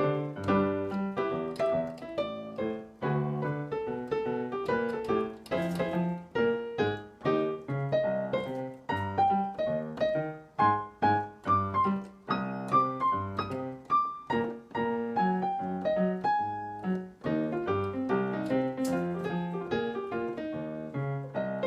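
Piano playing an instrumental break of the song, with chords and bass notes and quick runs of notes throughout.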